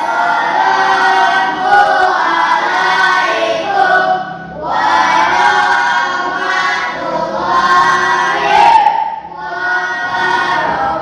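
A class of schoolchildren singing together in unison, in sung phrases with short breaks about four and a half and nine and a half seconds in.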